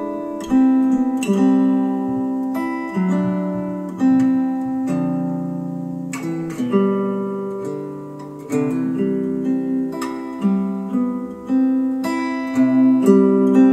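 Acoustic guitar music with strummed chords, played back through KEF Q150 bookshelf speakers driven by an Arcam SA10 integrated amp; partway through, the same passage carries on through Polk Audio Reserve R200 bookshelf speakers.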